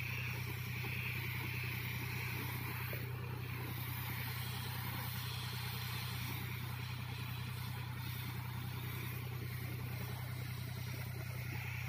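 Engine of a power sprayer running at a steady, even hum, pumping spray liquid through a long hose to a hand spray gun.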